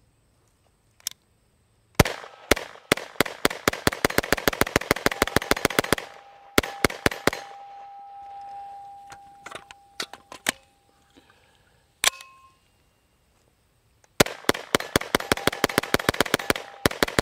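Grand Power Stribog SP9A3 roller-delayed 9mm pistol fired semi-automatically, in fast strings of about four or five shots a second broken by single shots and pauses. Steel targets ring after some hits. It is firing 124-grain Federal ammunition, which it cycles without malfunctions.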